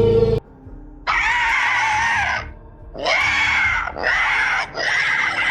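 Film-style dinosaur sound effects: a low, drawn-out call cuts off just after the start, then four shrill screeching calls follow one after another, the first and longest about a second and a half.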